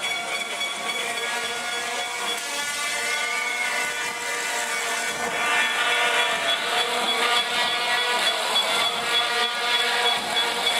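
Spectators in an indoor swimming hall cheering on a butterfly race, with sustained horn and whistle tones held over a crowd hiss. The noise swells about five and a half seconds in.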